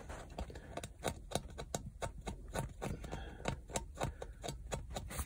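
Hand polishing of a newly fitted crankshaft bearing in a Honda CX500 engine block, smoothing off small marks: a quick, irregular run of short rubbing strokes, about four a second.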